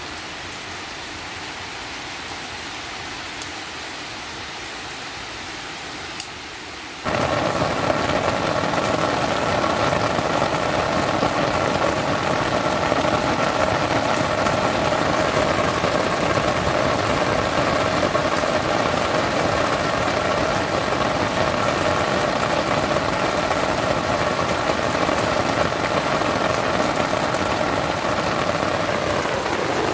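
Heavy rain falling, a steady hiss. About seven seconds in it jumps abruptly louder and stays dense, the patter of rain hitting close by.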